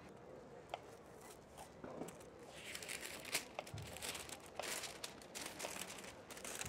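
Baking parchment being handled, crinkling and rustling, the crackle building from about two seconds in. A few light knocks of a knife on a wooden cutting board come through it.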